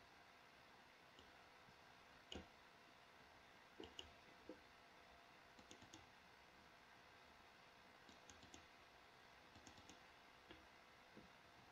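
Faint, scattered computer mouse clicks over near-silent room tone, about a dozen single clicks and short pairs spread irregularly, the loudest a couple of seconds and about four seconds in.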